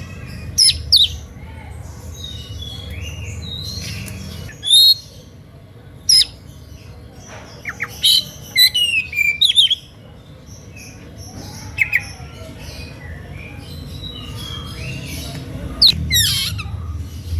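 Oriental magpie-robin (kacer) singing in an agitated, heated mode that provokes rival magpie-robins to answer: loud sharp whistles and chirps in irregular bursts. A low steady hum runs underneath.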